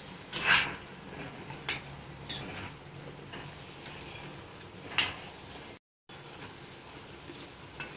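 A metal spoon scraping and knocking against a steel kadai as diced potatoes are stirred: a few short scrapes, the loudest about half a second in. The sound cuts out completely for a moment around six seconds in.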